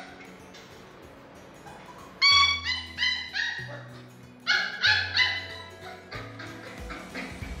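Yellow Labrador puppy whining and yipping in two bursts of short, high cries, about two seconds in and again about four and a half seconds in, over background music with a stepping bass line.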